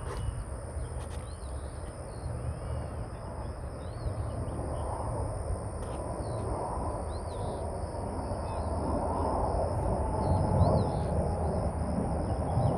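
Distant jet roar from the Blue Angels' formation of F/A-18 Hornets, building steadily louder as the jets approach, with birds chirping.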